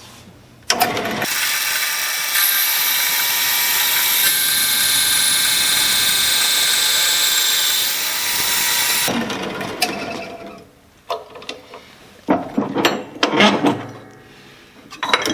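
Jet horizontal bandsaw cutting 1¼-inch square tubing: a steady, high-pitched sawing noise with a whine that slowly falls in pitch, starting about a second in and dying away after about nine seconds. A few sharp metallic clanks follow near the end.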